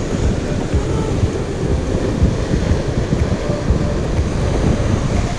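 Strong wind buffeting the action camera's microphone: a loud, steady, rough rumble.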